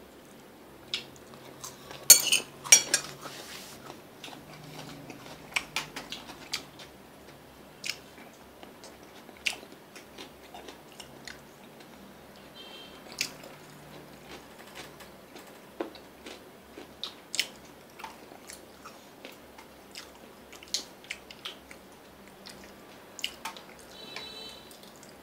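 Chopsticks clicking and scraping against ceramic plates and bowls while eating, in scattered light knocks with a louder clatter about two seconds in.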